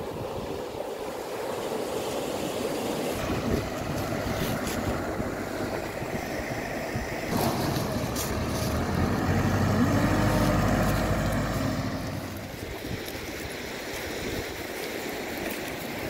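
Surf washing on a pebble shore, with wind on the microphone. From about seven seconds in, a wheel loader's diesel engine runs and revs up, loudest around ten to eleven seconds, then eases off.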